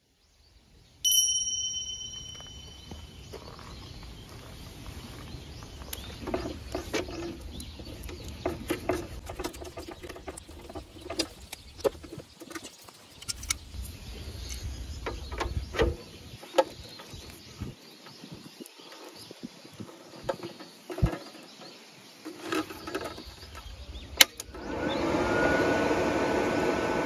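Welding cables and an electrode holder being handled and their plug connectors pushed and twisted into the front sockets of an EENOUR MIG120L inverter welder, giving scattered clicks and knocks. Near the end a sharp click, then the welder powers up and its cooling fan starts with a steady whir and a faint high whine.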